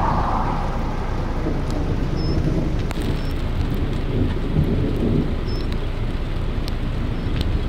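Thunderstorm ambience in open country: a steady rushing noise with a low rumble underneath, broken by a few sharp ticks and a few faint, short high chirps.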